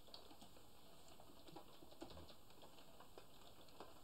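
Near silence with faint, scattered clicks of a computer keyboard being typed on.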